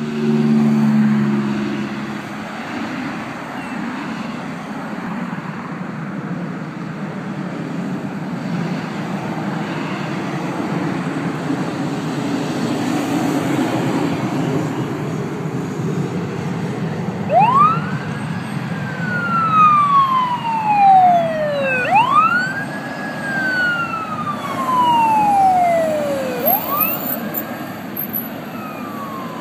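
Road traffic passing, including a heavy truck, with a brief low steady tone at the very start. Past the halfway point a rescue ambulance's siren starts up in a slow wail, its pitch rising quickly and falling slowly in long sweeps, about three cycles.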